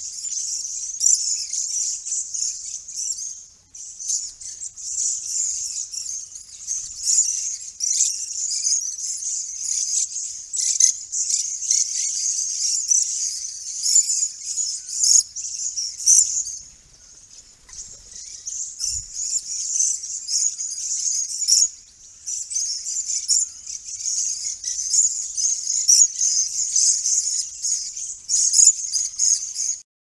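Background chorus of many lorikeets and parrots, a dense, high-pitched chatter of overlapping screeches and chirps that dips briefly about four seconds in and again around seventeen seconds in.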